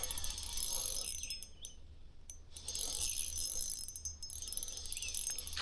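Faint steady high-pitched insect chirring over a low rumble.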